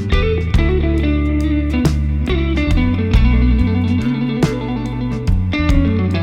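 Live band playing an instrumental passage: electric guitar over bass and drums, with a steady beat.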